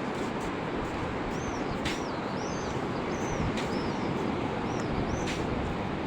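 Steady wash of sea waves on a beach, with a bird chirping repeatedly over it, short high arched chirps from about one second in until near the end.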